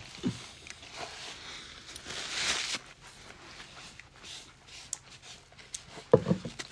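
Quiet eating sounds of people eating tacos: chewing, small mouth clicks and soft rustling, with a soft noisy swell about two seconds in and a brief voice sound near the end.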